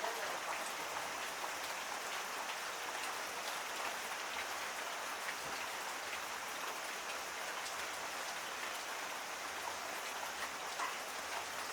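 Heavy tropical rain falling steadily: an even hiss with many separate drops ticking on surfaces.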